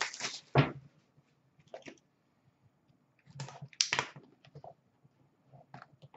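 Hands opening and handling a cardboard trading-card box: scattered soft clicks and rustles of cardboard, loudest near the start and again about four seconds in.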